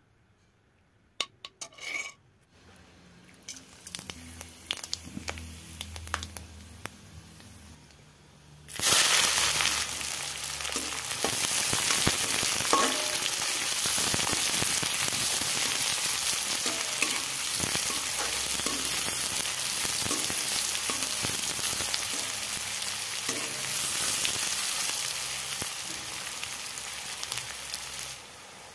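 Ghee in a steel kadai crackles faintly with a few light clicks. About nine seconds in, sliced onions go into the hot fat and fry with a loud, steady sizzle, while a steel ladle scrapes and clinks as it stirs them.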